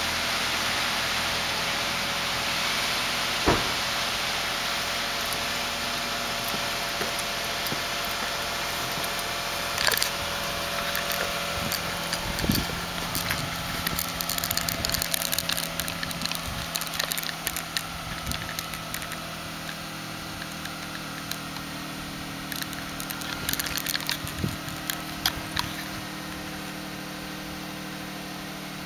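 Toyota Highlander engine idling while burning Sea Foam through the exhaust, under a steady hiss, with scattered clicks and knocks and a few louder thumps; the low engine hum comes through more clearly in the second half.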